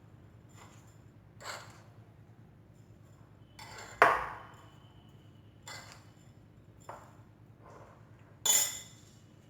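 Spoon knocking and scraping against a bowl while mixing sweet khoya-and-sugar stuffing: about six separate clinks, the loudest about four seconds in with a short ring, another loud one near the end.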